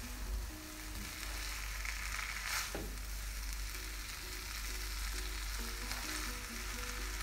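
Corn vermicelli frying in a wok with a steady sizzle, stirred with a silicone spatula, with a brief sharper scrape about two and a half seconds in. A faint background melody runs underneath.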